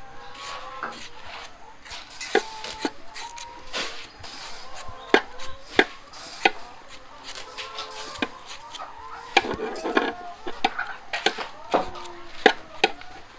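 A knife shaving thin slices off a fresh Beijing (Chinese) bamboo shoot held in the hand. It makes an irregular run of crisp, sharp cuts, one or two a second, some much louder than others.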